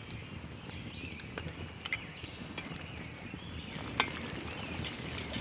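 Birds chirping faintly over a low, steady outdoor background, with a few sharp pops from a campfire, one about two seconds in and a louder one about four seconds in.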